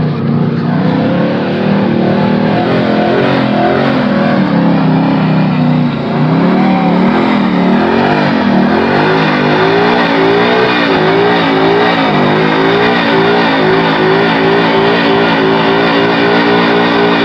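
Late-model Ford Mustang doing a smoky burnout: the engine revs up and down, then from about nine seconds in is held at high revs with an even wavering as the rear tyres spin.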